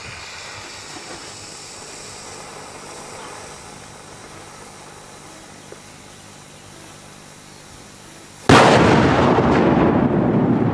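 Low background hiss, then about eight and a half seconds in a large firework goes off with a sudden loud blast that carries on as a rough, rumbling roar, fading only slowly.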